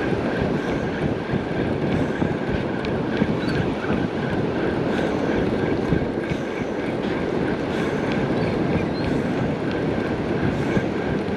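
Steady wash of ocean surf mixed with wind buffeting the microphone.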